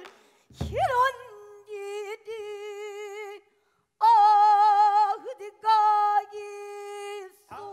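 Pansori singing by a female voice in the sorrowful gyemyeonjo mode: long held notes with a wide, wavering vibrato, broken by a short pause in the middle. About half a second in there is one stroke on the buk barrel drum.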